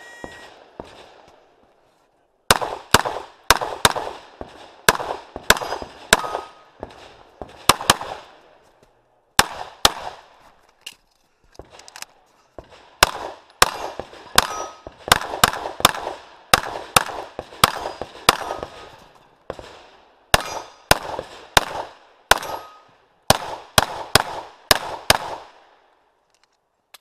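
A 9 mm CZ Shadow pistol fired in rapid strings, dozens of shots with a few short pauses. Some shots are followed by the ringing clang of steel popper targets being hit. A brief electronic shot-timer start beep sounds right at the start.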